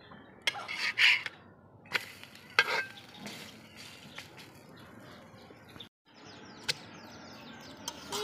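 Metal spatula scraping and knocking against an iron tawa while an egg paratha is lifted and turned, a handful of sharp clatters over a low steady hiss.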